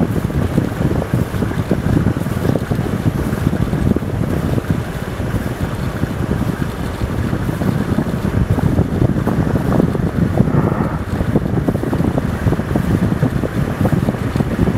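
Wind buffeting the microphone: a loud, steady low rumble that swells and dips in gusts.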